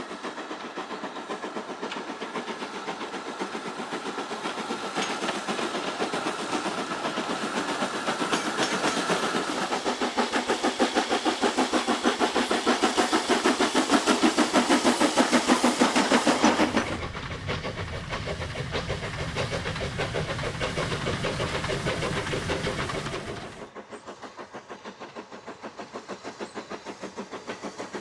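Steam locomotive exhaust beating in a fast, even rhythm as the engine works hard, growing louder as it approaches. The sound cuts abruptly twice, about two-thirds of the way in and again near the end, to other working steam locomotives, the last heard more quietly.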